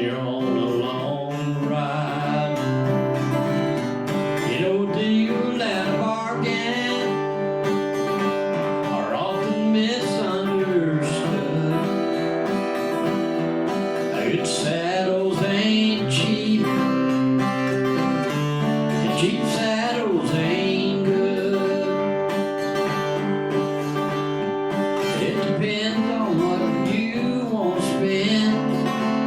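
Live country song: a man singing to his own strummed acoustic guitar.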